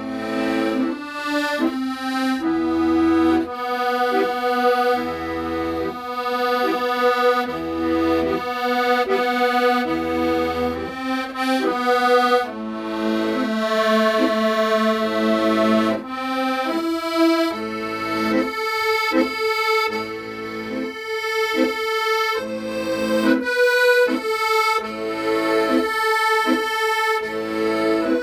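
Accordion playing a song melody with sustained notes over a steady, repeating left-hand bass-and-chord accompaniment.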